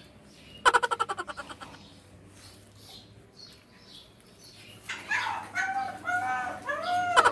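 Siberian husky vocalizing: a short, pulsing yelp about a second in, then a run of rising-and-falling whining howls near the end, the dog protesting being bathed.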